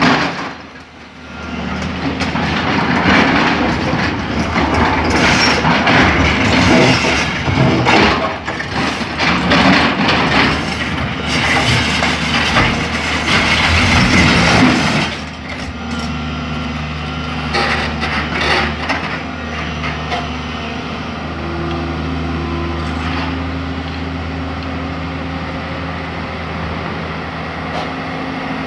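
Tata excavator's diesel engine working hard, with knocks and clatter of stone for about the first fifteen seconds. After that the engine runs steadily with an even hum.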